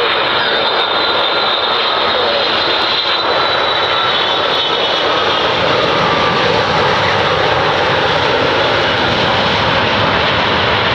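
The GE turbofan engines of a Boeing 787 landing and rolling out on the runway: a loud, steady jet rush with a high whine that glides slowly down in pitch over the first few seconds.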